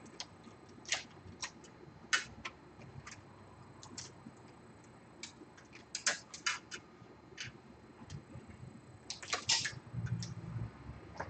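Irregular light clicks and taps of small parts and tools being handled on an opened 2012 13-inch MacBook Pro during reassembly, with a quicker run of clicks and a soft knock near the end.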